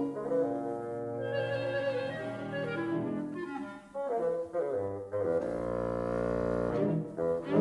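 Background instrumental music with long held notes, a slow melody over a sustained chord.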